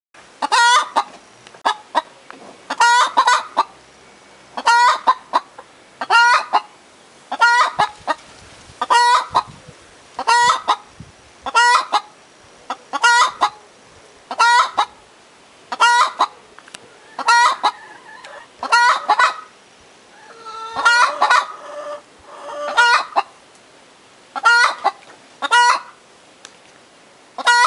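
Domestic hens cackling: a short, loud call repeated over and over about every second and a half, with a busier stretch of overlapping calls about two-thirds of the way through.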